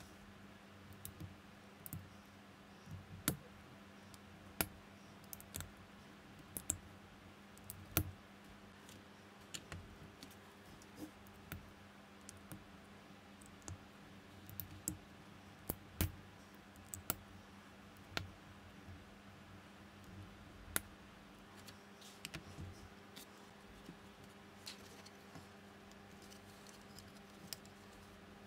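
Small plastic building bricks clicking and snapping as they are pressed together and fitted by hand: irregular sharp clicks, a few of them louder snaps, over a faint steady hum.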